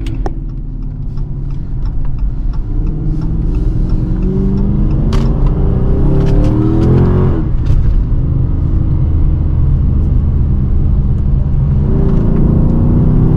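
Dodge Charger R/T's 5.7-litre Hemi V8 accelerating through the gears from a stop, heard from inside the cabin. The engine note climbs steadily, drops at an upshift about seven and a half seconds in, then starts climbing again. With its exhaust leak at the flex pipes repaired, the exhaust sounds quiet and low-key, kind of like a V6.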